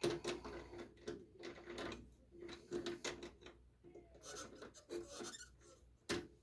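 Quiet, irregular clicks, taps and short scraping rubs of metal parts being handled and adjusted on a metal lathe, with a sharper click near the end.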